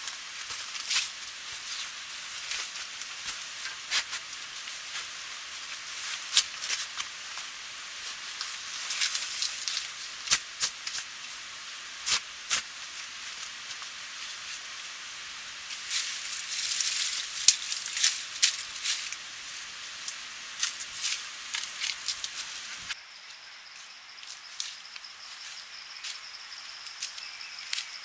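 Steady hiss with frequent sharp crackles and snaps. About 23 seconds in it cuts to quieter outdoor ambience with insects trilling steadily on one high note.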